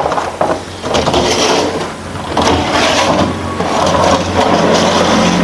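Continuous rustling and clattering of spare parts being rummaged through in search of a flyback transformer, over a low steady hum.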